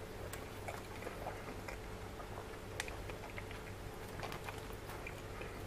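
Close-up eating sounds: small wet clicks and smacks of a mouth chewing, with sticky handling of saucy curried pork by hand, over a faint steady hum.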